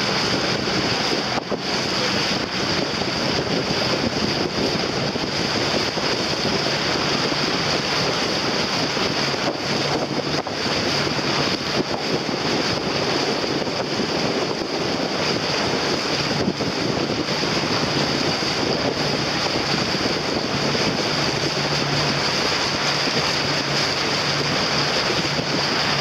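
Wind rushing steadily across the microphone over open water, with waves lapping.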